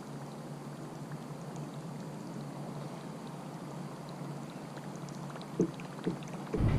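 Creek water running steadily, with small ticks and splashes in it. Two light knocks come about five and a half and six seconds in, and a loud low rumble starts near the end.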